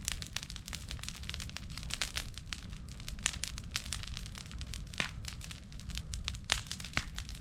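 Bonfire of dry grass and cut branches crackling, with irregular sharp pops over a steady low rumble.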